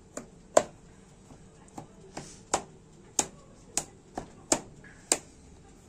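A metal fork pricking holes in rounds of risen bread dough on a dark baking pan, the tines clicking sharply against the pan with each jab: about ten irregular clicks, roughly two a second.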